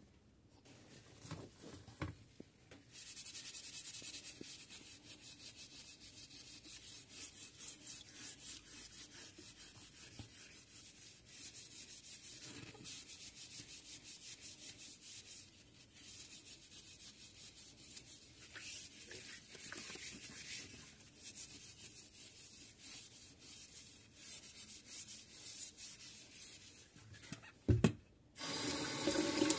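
A microfibre dish cloth scrubbing a frying-pan lid and its metal rim with abrasive cleaning paste, in rapid, even back-and-forth strokes. Near the end there is a knock, then tap water starts running for the rinse.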